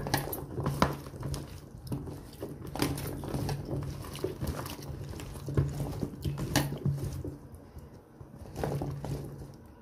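Hands tossing sliced potatoes and carrots in a sauce marinade in a plastic tub: wet squelching with irregular knocks and clicks of the slices against each other and the plastic. A low hum comes and goes underneath.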